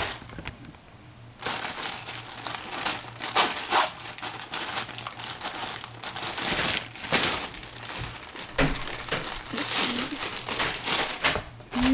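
Crinkling and rustling in irregular bursts, starting about a second and a half in, as vegetables are handled.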